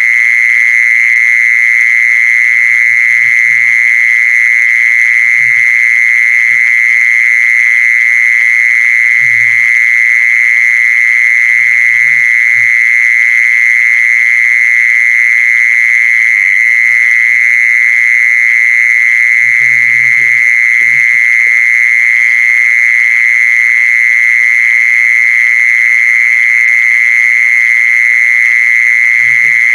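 A loud, unbroken shrill tone with fainter overtones, broken every few seconds by short low croaking calls, bunched about twenty seconds in: an animal-calling sound played to lure a female 'kmol'.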